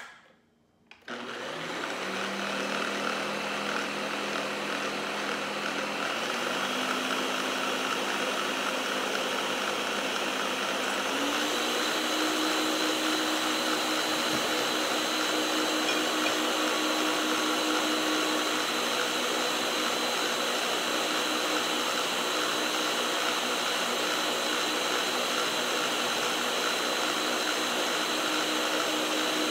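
Countertop blender motor running at speed, mixing a milky liquid mix of mashed potato and milk. It starts about a second in, steps up in pitch a few times over the next ten seconds, then runs steadily.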